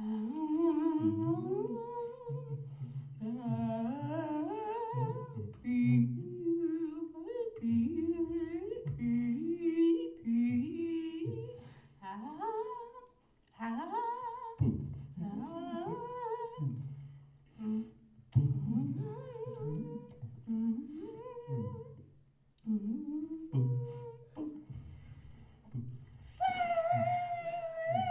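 Two voices vocalising, a man and a woman: a low steady hum under a higher voice that swoops up and down in short sliding phrases with brief pauses between, sung through mouthfuls of marshmallow. Near the end the higher voice holds one long high note.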